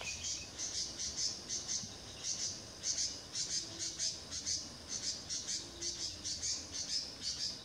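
Small animal chirping: a steady run of short, high chirps, about three to four a second.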